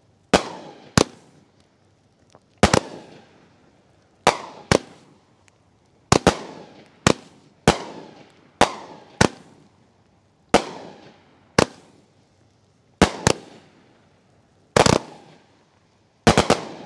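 Olde Glory consumer firework cake firing its shots in sequence: a series of sharp bangs, often in pairs, roughly one every half second to a second and a half, each with an echoing tail. A tight cluster of bangs comes near the end.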